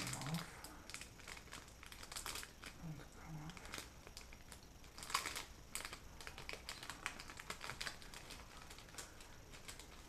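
Clear plastic bag crinkling and rustling in the hands in short, irregular crackles, with a louder burst about five seconds in.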